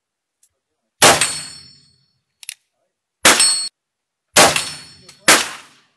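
Four shots from a .44 black-powder Colt 1860 Army replica revolver, the last three coming quickly. Each shot is followed by the ring of a struck steel gong, and short clicks fall between some of the shots.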